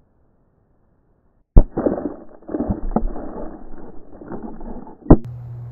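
Dry ice bomb bursting, heard slowed down: a sharp bang about a second and a half in, a few seconds of rough crackling noise, then a second sharp bang near the end, after which a low steady hum sets in.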